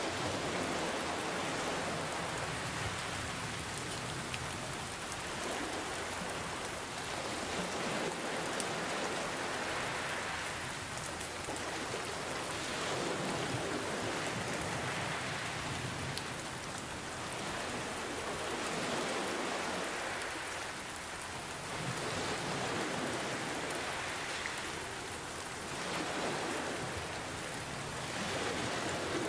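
Steady rain hiss mixed with ocean waves, which swell and ease about every three seconds.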